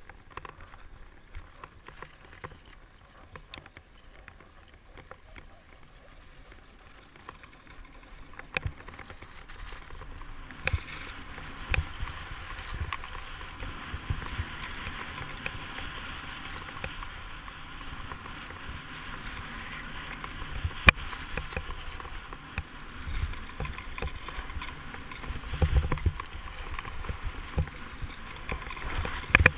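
Sit-ski sliding down a groomed ski slope: a steady hiss and scrape of the ski on packed snow. It grows louder about ten seconds in as speed builds, with a few sharp clicks and low thumps over bumps, heaviest near the end.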